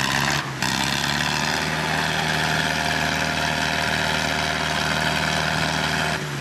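Tractor diesel engines running hard at steady high revs while two tractors pull against each other in a tug-of-war, with a brief break about half a second in.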